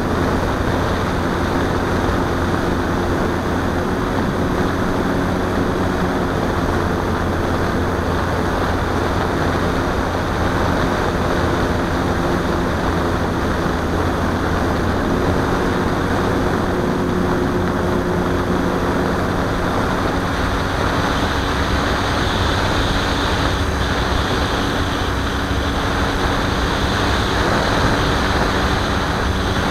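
Radio-controlled model plane's motor and propeller droning steadily under a rush of wind, heard from the camera on board the plane.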